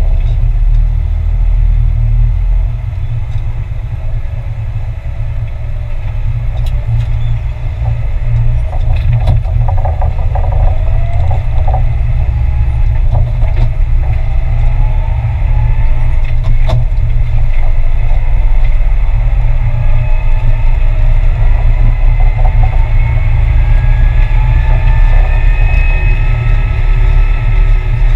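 Valtra 8350 tractor's six-cylinder diesel engine running with a deep, steady rumble and a few scattered knocks. A whine climbs slowly in pitch through the second half.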